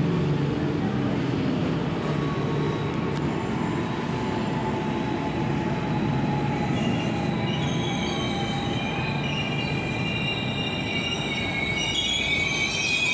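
Commuter Line electric multiple-unit train running past with a steady rumble of wheels on rail. From about seven seconds in, the wheels start squealing in several high, ringing tones that grow louder toward the end.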